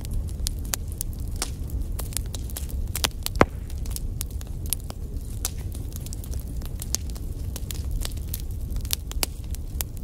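Wood fire crackling in a fireplace: frequent irregular sharp pops and snaps over a steady low rumble of burning. One louder pop stands out about three and a half seconds in.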